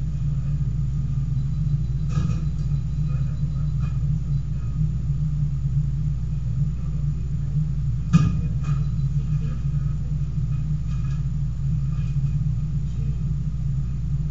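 Steady low mechanical hum or rumble, with a faint knock about two seconds in and a sharp click about eight seconds in.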